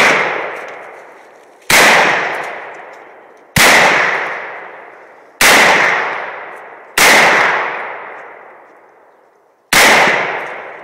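AR-15 rifle fired one shot at a time, six shots spaced roughly one and a half to two and a half seconds apart. Each sharp crack rings out in a long echo that fades before the next.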